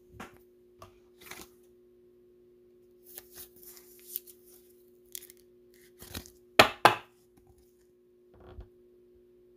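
A trading card being handled in a clear rigid plastic holder: scratchy sliding and light taps of card and plastic, then two sharp plastic clicks in quick succession about two-thirds of the way through. A faint steady electrical hum sits underneath.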